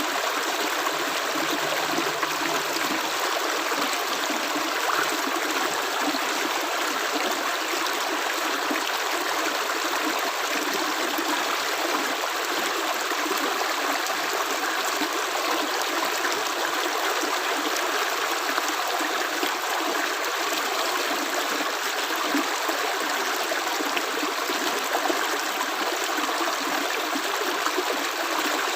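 Running water, like a small stream flowing: a continuous, even sound with no single drops standing out.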